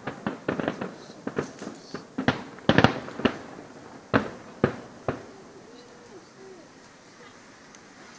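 Aerial firework shells bursting in a rapid string of sharp bangs, thinning to a few single reports about four and five seconds in before the display falls quiet.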